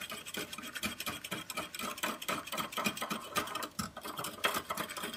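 Hand whisk beaten fast in a ceramic mug of hot milk and instant coffee, its wires rattling and scraping against the mug in a rapid, even clatter as the milk is frothed into foam.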